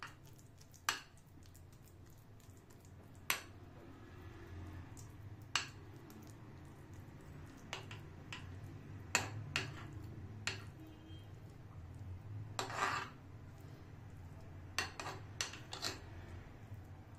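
A metal spoon clinking and tapping against a glass baking dish while soft ground-chicken mixture is scooped and spread: scattered sharp clicks every second or two, with a longer scrape about two-thirds of the way through.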